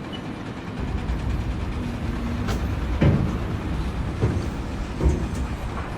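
Low, steady mechanical rumble with a few dull knocks about three, four and five seconds in.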